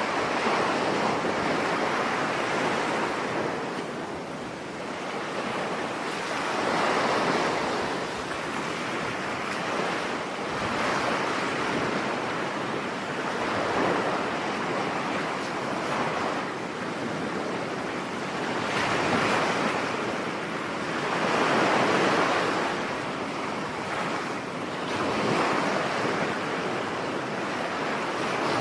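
Sea waves washing in as surf: a continuous rushing wash that swells and eases every few seconds.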